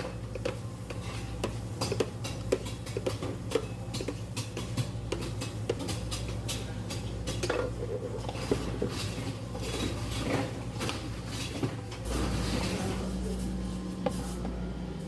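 Dishes and utensils clinking and knocking in a cafe's work area, many small sharp clicks at an uneven pace, over a steady low machine hum that gets a little louder near the end.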